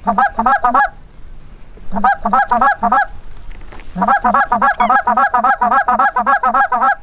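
Goose call blown in fast, even runs of honks and clucks, three runs in all with the last one the longest, calling to incoming geese ahead of a shot.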